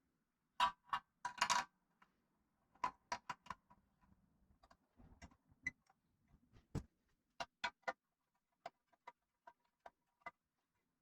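Irregular metallic clicks and taps of tools and small engine parts being handled, a quick cluster about half a second to a second and a half in, then scattered single clinks.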